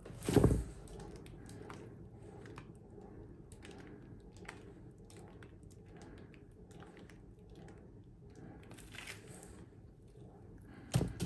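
A painted canvas being handled and turned over crinkly plastic sheeting: soft plastic crinkles and small clicks throughout, with a louder rustle about half a second in and again near the end.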